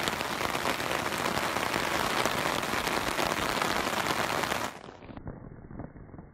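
Heavy rain pattering densely on a surface, which cuts off abruptly about three-quarters of the way in, leaving only a faint, muffled remnant.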